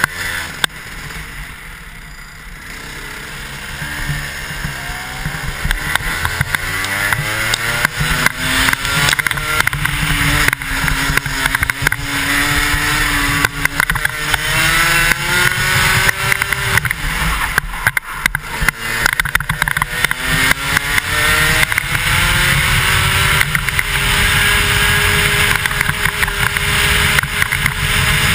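A 125cc two-stroke kart engine, heard from the driver's helmet with wind rushing over the microphone. The revs drop and the engine goes quieter about two seconds in, then climb, ease off and climb again several times, and hold high and steady near the end.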